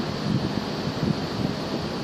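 Wind buffeting the microphone in irregular low gusts over a steady rush of open water.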